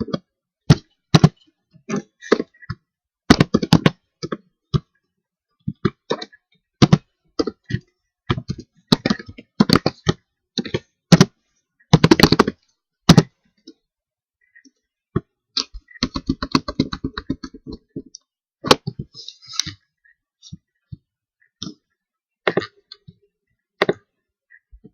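Computer keyboard typing: irregular keystrokes and clicks in short bursts, with a fast run of keystrokes about two-thirds of the way through.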